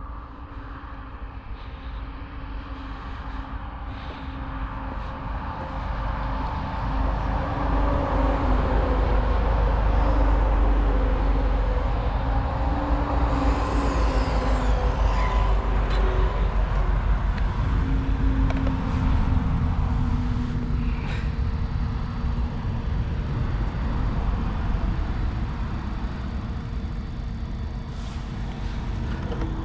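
A steady low rumble that builds over the first several seconds. About halfway through comes a high whine that falls in pitch as a VBC FF18 front-wheel-drive RC touring car, with a Robitronic Razer 4000kv brushless motor on 3S, speeds past. A few sharp clicks come near the end.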